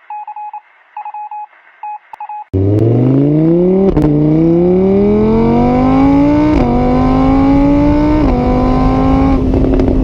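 A few short electronic beeps, then a car engine accelerating hard: its pitch climbs and drops abruptly at each of three gear changes, cutting off near the end.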